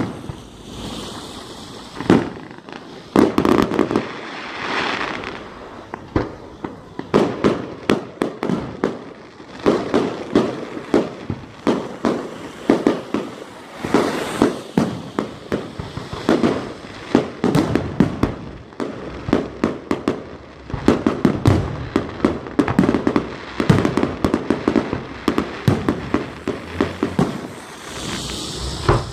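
Aerial fireworks launching and bursting overhead: a rapid, unbroken run of sharp bangs and pops, several a second, with short stretches of hissing crackle.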